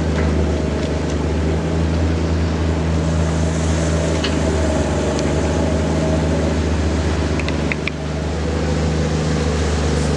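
Large diesel engine running steadily at a constant speed, with a few faint clicks.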